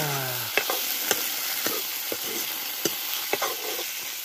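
Food frying in hot oil in a black wok, a steady sizzle, while a metal ladle stirs it, with several sharp clinks of the ladle against the pan.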